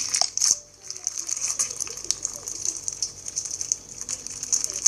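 Fishbowl slime (clear slime filled with small plastic beads) being squeezed and worked by hand: a dense, uneven crackle of the beads popping and clicking against each other, with a wet squish. The crackle dips briefly just under a second in.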